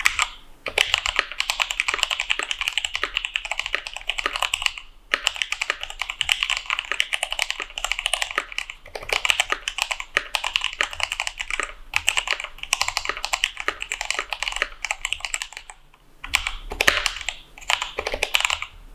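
Typing on a mechanical keyboard fitted with spray-lubed Kailh Speed Copper tactile switches, mounted on a brass plate with case foam: fast runs of sharp keystroke clicks, broken by brief pauses about five, twelve and sixteen seconds in.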